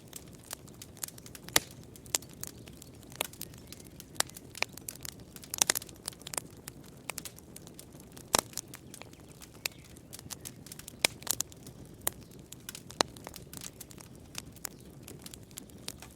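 Campfire crackling: irregular sharp pops and snaps of burning wood over a steady low rush of flame, with a quick flurry of pops about five and a half seconds in.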